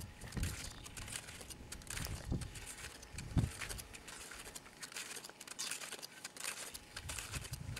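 Snowshoe footsteps crunching in trampled snow, an irregular run of crisp crackles, with a few low thumps.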